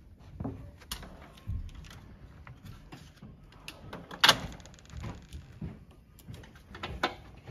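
Hand tools clinking and knocking against metal, with one loud sharp clack a little past halfway, as a drawer of a roll-around tool cart is shut.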